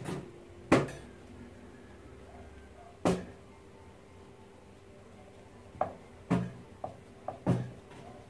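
Kitchen clatter: sharp knocks and clacks of utensils and cookware, the loudest about a second in and again about three seconds in, then a quick run of smaller clicks near the end. A faint steady hum runs underneath.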